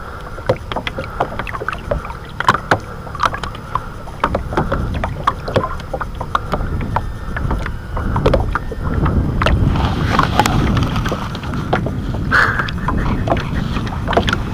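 Lake water lapping and splashing against a small boat's side and around a hand holding a caught asp by the tail in the water for release, with many small sharp splashes. A low rumble builds from about halfway through.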